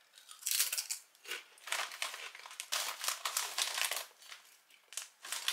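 Crunching and chewing a Lay's Wavy potato chip: a run of irregular crisp crunches, several a second.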